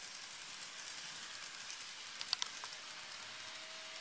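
Model JR East E259 series Narita Express train running along its track: a faint steady running hiss with a few light clicks a little over two seconds in.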